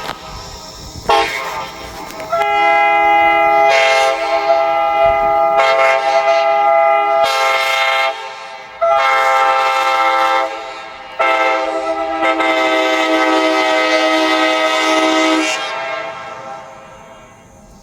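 Locomotive air horn sounding a steady chord in a series of blasts: a brief toot, then several longer blasts, the last and longest cutting off about three-quarters of the way through, after which the sound fades away.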